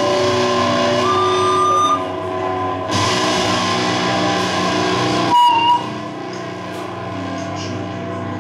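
Experimental noise music: layered droning tones with a guitar-like sound. The texture changes abruptly about two and three seconds in, a short loud burst with a high tone comes a little after five seconds, and then quieter drones follow.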